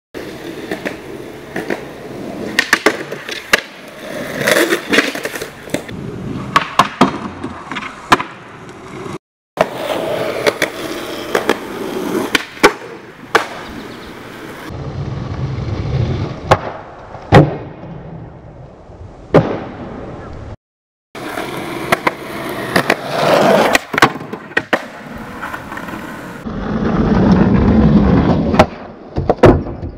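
Skateboard tries at a wooden grind box with a metal edge, shown in three cut-together takes. Wheels roll on concrete, the tail pops with sharp clacks, the trucks grind along the box's metal edge, and the board slaps down on landing.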